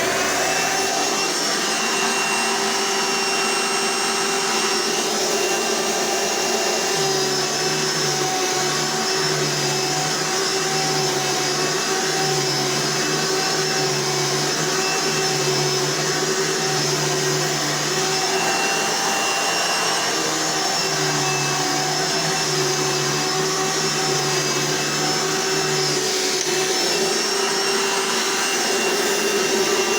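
Hoover Elite upright vacuum cleaner with a 12-amp motor, switched on and running with a steady, high-pitched whine. A low hum underneath wavers on and off about once a second through the middle stretch.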